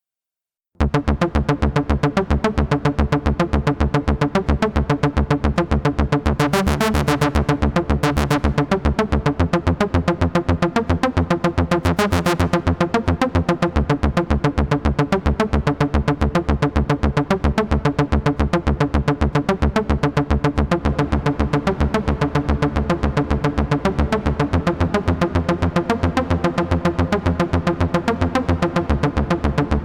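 Synthesizer sound effect: a fast, even pulsing pattern of synth notes that starts about a second in and runs on steadily, with brief bright high-pitched flourishes in the middle.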